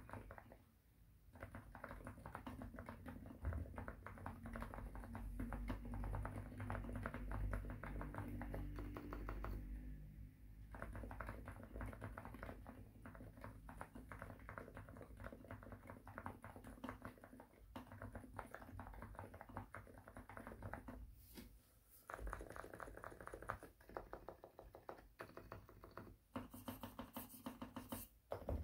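Typing on a Xinmeng M67 gasket-mount keyboard with lubed TTC Silent Bluish White silent switches and PBT doubleshot keycaps: quiet, dampened keystrokes in fast runs, with brief pauses about a second in, about a third of the way through and about two thirds of the way through.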